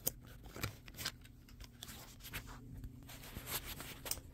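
Faint handling noise: a few scattered light clicks and taps over a low steady hum.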